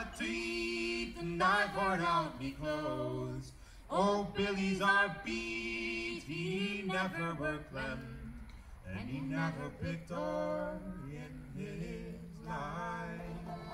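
A man and a woman singing unaccompanied in long, held phrases.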